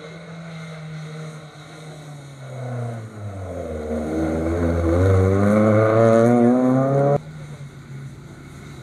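Rally car engine coming closer: the engine note dips, then climbs steadily as the car accelerates hard and gets loud, and cuts off suddenly about seven seconds in.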